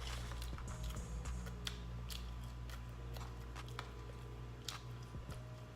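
A person chewing fast food close to the microphone, with scattered small wet clicks and crunches, over a steady low hum.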